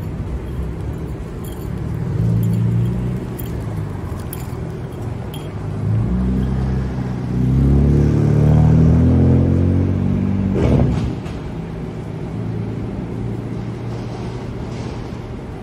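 City street traffic: a motor vehicle's engine rises in pitch as it accelerates and passes, loudest about eight to ten seconds in, over a steady low hum of traffic.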